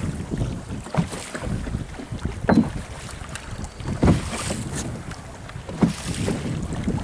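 Wind buffeting the microphone over the sound of sea waves around a small boat, with about four sharp knocks, the loudest two near the middle.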